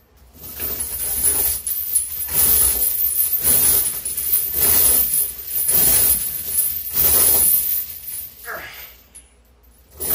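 Heavy steel chains hanging from a loaded barbell clinking and jangling with each rep of a fast decline bench press, about six pulses roughly a second and a quarter apart as the links lift off and drop back onto the floor. A short grunt comes near the end.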